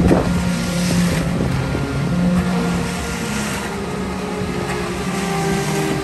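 Engine of heavy construction equipment running steadily, its pitch rising and falling slightly, with a short knock right at the start.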